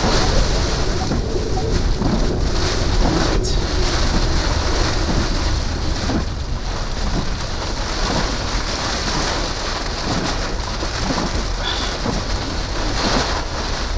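Heavy rain and wind beating steadily on a vehicle, heard from inside the cabin, with a deep rumble underneath.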